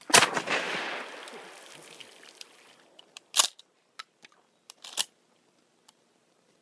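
A shotgun fires once, its report echoing away over about two seconds. A few sharp clicks and clacks follow, about three to five seconds in.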